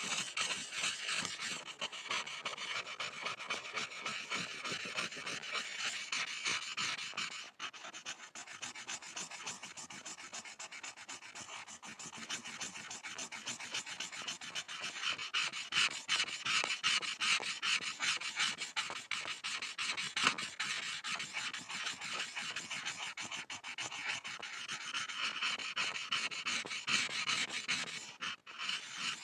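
Pencil scribbling on a board: continuous dry scratching made of many quick short strokes, with a brief break about seven and a half seconds in and another near the end.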